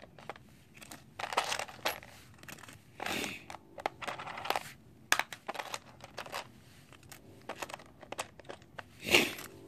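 Small metal washers clicking against each other and plastic bags crinkling as they are handled, in short scattered clicks and rustles, with a louder rustle near the end.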